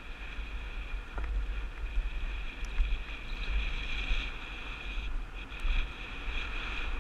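Mountain bike rolling fast down a dirt trail, heard from a helmet-mounted camera: wind buffeting the microphone as a steady rumble, with tyre and riding noise as a high hiss and buzz, and a few light clicks and rattles.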